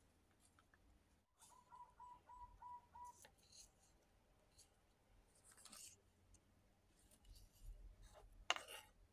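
Kitchen knife cutting cherry tomatoes on a wooden cutting board: a few faint cuts and scrapes, then a sharper knock of the blade on the board near the end.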